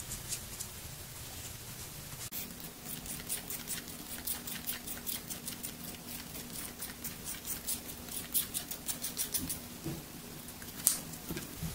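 A screwdriver scraping and picking at the carbon electrode of a zinc-carbon battery cell, with manganese dioxide crumbling around it. Quick scratchy strokes, several a second, start about two seconds in and thin out near the end.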